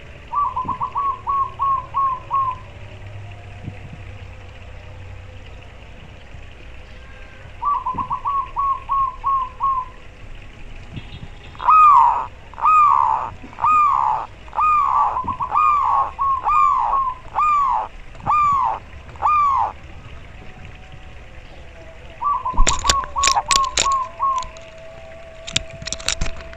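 Zebra dove (perkutut) cooing: short bursts of rapid staccato notes, then a run of about a dozen louder, slower notes that each fall in pitch. Near the end comes another rapid burst, overlapped by several sharp knocks.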